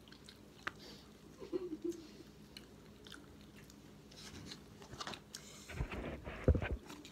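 A person chewing and biting food, with small clicks and rustles from a black plastic takeaway container being handled. A loud low thump comes about six seconds in.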